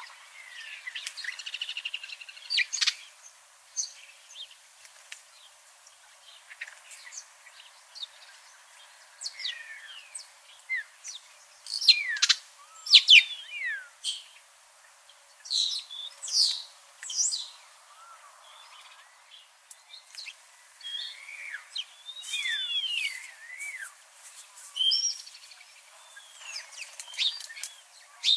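Birdsong: several birds chirping and calling in short, scattered phrases, including slurred whistles that rise and fall, with the loudest calls about halfway through.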